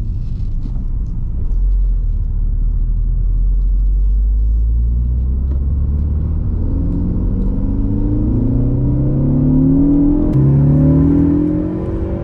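Ford Focus ST engine heard from inside the cabin under acceleration: a low rumble at first, then revs climbing and dropping back at gear changes about three times in the second half.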